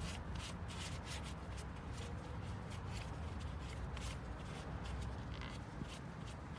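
Gloved hands wiping a metal oil filter housing with a paper towel, irregular rustling and rubbing strokes as the housing is cleaned before it is refitted. A low steady hum runs underneath.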